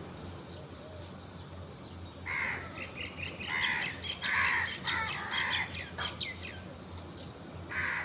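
Birds calling: a run of loud calls from a little over two seconds in to about six seconds, then one more near the end, over a steady low hum.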